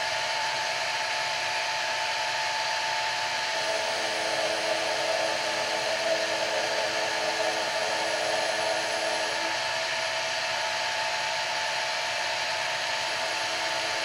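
Milling machine running an end mill through the end of an aluminium block on light cleaning passes, a steady motor whine. A second, lower tone joins from about four seconds in and drops away at about nine and a half seconds.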